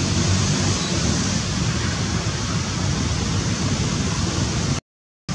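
Steady rushing noise, mostly wind on the microphone, mixed with the engine of a small motorbike passing along the road. The sound drops out abruptly about half a second before the end.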